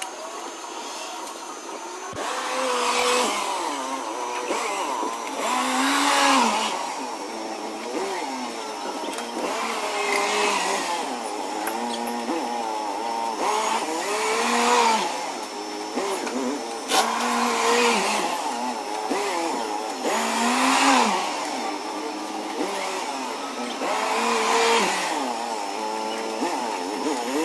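Propane-powered forklift engine running, its pitch rising and falling again and again every few seconds as the truck drives and lifts pallets.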